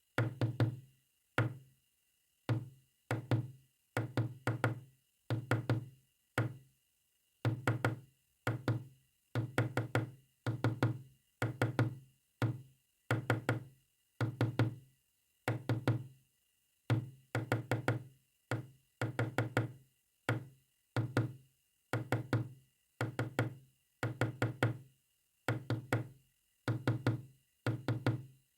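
Knocking tapped out as Morse code: quick knocks in clusters of one to four, with short pauses between clusters, going on without a break.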